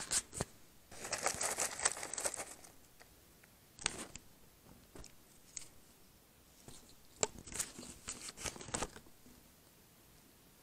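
Paper microwave-popcorn bag crinkling and rustling in irregular bursts, the longest lasting about a second and a half.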